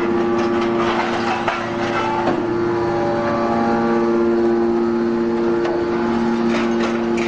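Hydraulic scrap metal baler running: a steady hum from its hydraulic pump and motor, with scattered metallic knocks from the scrap being handled.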